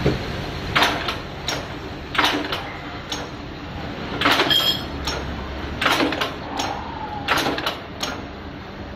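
Sharp metallic clicks and clinks at irregular intervals, about ten in all, from small rivets and parts being handled at an automatic riveting machine, over a steady low hum.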